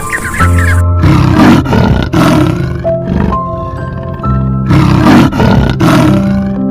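Lion roaring repeatedly: three roars in quick succession about a second in, then two more after a pause, over a steady, light children's tune played on mallet-like notes.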